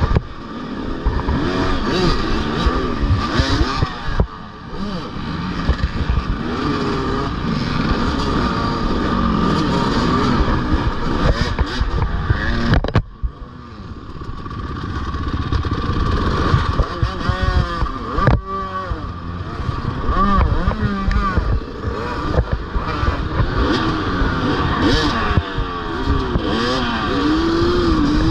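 Off-road racing motorcycle engine revving up and down as the rider works the throttle, with short breaks in the power about four and thirteen seconds in, over knocks and rattles from the bike on rough ground.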